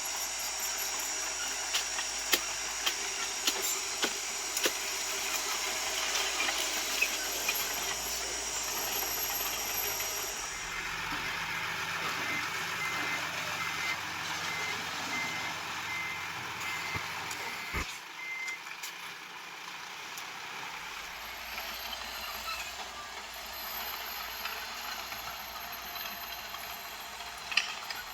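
Heavy construction machinery running, with scattered knocks in the first few seconds. Partway through, a vehicle's reversing alarm beeps about twice a second for several seconds over a low engine hum.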